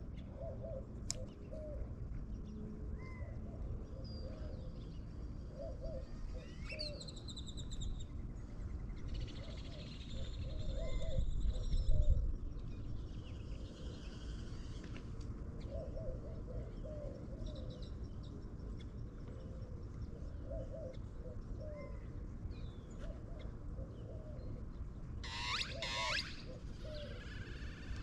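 Birds calling and chirping, with short low notes repeated again and again and higher chirps in a few bursts. A low rumble swells and peaks about twelve seconds in.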